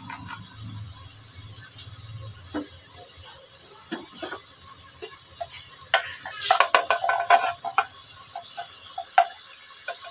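Onion-tomato masala frying in oil in an aluminium pot: a steady sizzling hiss with scattered small crackles, and a quick run of sharper clicks and clinks about six to seven and a half seconds in.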